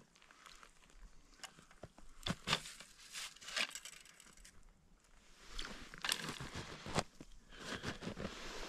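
Packed snow crunching and rustling in irregular bursts as a person crouches and shifts his weight, with scattered small clicks and knocks from handling a wooden ice-fishing tip-up.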